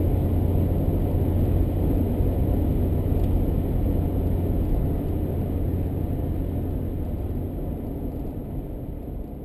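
Car driving, a steady low rumble of road and engine noise that fades out gradually over the second half.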